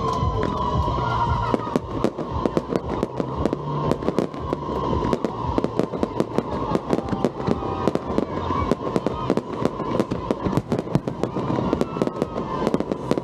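Aerial fireworks bursting in a dense, continuous barrage of sharp bangs, several a second, with no let-up.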